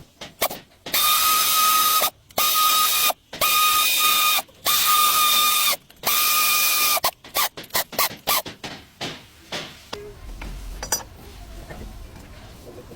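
Power ratchet running in five loud bursts of about a second each with a steady whine, then a run of quick ratcheting clicks.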